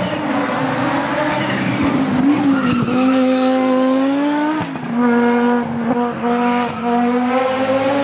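Audi S1 race car engine working hard at high revs as the car climbs past. The pitch rises, breaks sharply about halfway through at an upshift, then holds high with brief dips at further shifts as the car pulls away.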